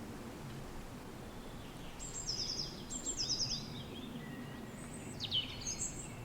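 Steady low wind rumble with a songbird singing over it: two quick phrases of rapid repeated high notes about two to four seconds in, then a short phrase of sweeping notes near the end.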